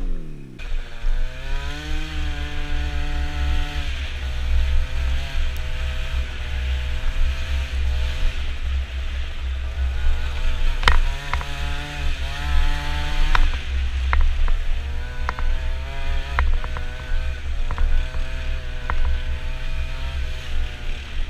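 Scooter engine buzzing under way, its pitch climbing and dropping several times as the throttle is opened and eased, over a heavy rumble of wind on the helmet-mounted microphone. Sharp knocks from the bumpy dirt track come now and then through the second half.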